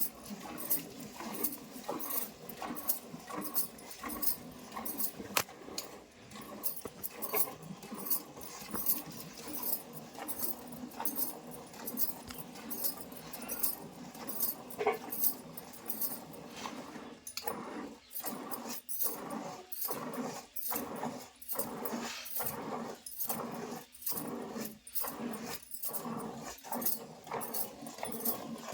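A cow being milked by hand: milk squirts into a pail in a steady rhythm of strokes, about two a second, more even in the second half.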